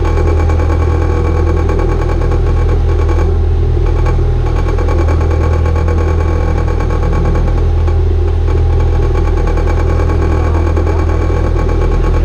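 Catamaran's inboard marine diesel engine running steadily at low revs, in gear to pivot the boat against a tight bow line.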